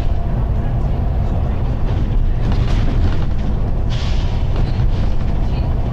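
Volvo B9TL double-decker bus under way, heard from the upper deck: a steady low engine and road rumble, with a brief hiss about four seconds in.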